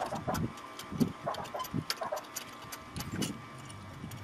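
Scattered light metal clicks and a few duller knocks as an engine hanging from a shop-crane hoist is worked and rocked out of the engine bay.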